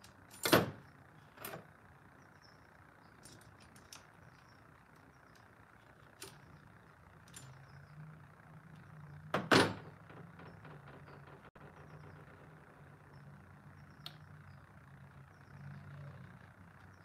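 Scattered metallic clicks and knocks of hand tools and screws on a chainsaw's housing as it is taken apart, with two loud clacks, about half a second in and about nine and a half seconds in. A faint low hum runs underneath from about seven seconds on.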